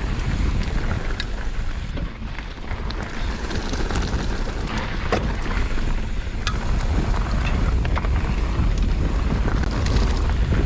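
Wind rumbling on the microphone of a mountain bike rider's camera, with scattered clicks and knocks from the bike rolling over rock.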